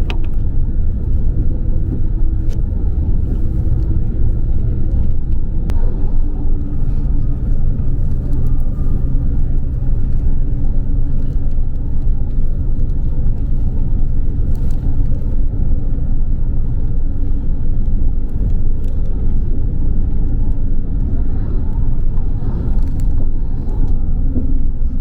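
Tour bus in motion, heard from inside the cabin: a steady engine drone and road rumble that runs without a break.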